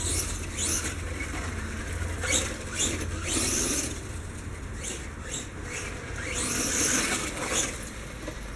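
Electric motor of a radio-controlled truck whining in several bursts as it speeds up and slows down across the grass, its pitch rising and falling with each run.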